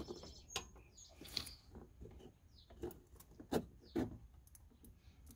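Faint, scattered clicks and taps of a 3/8-inch drive ratchet being worked into the square drive hole of a serpentine belt tensioner arm, with a few sharper clicks about three and a half and four seconds in.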